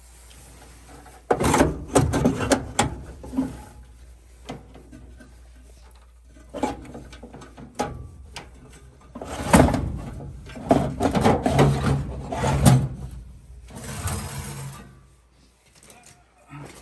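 Furnace cabinet being handled: irregular clattering, knocking and scraping in several bouts, with a low steady hum underneath that stops about fifteen seconds in.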